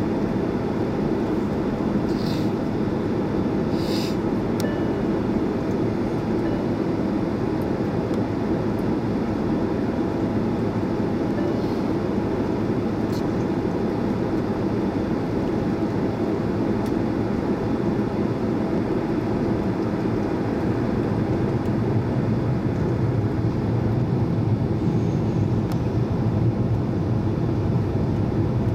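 Steady cabin noise inside a Boeing 767 taxiing to the runway: a low, even rumble of the jet engines at taxi power and the cabin air, getting slightly louder near the end.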